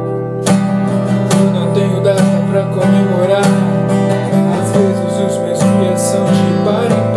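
Acoustic guitar strummed steadily in a rock rhythm, changing chord about four seconds in, with a man singing along.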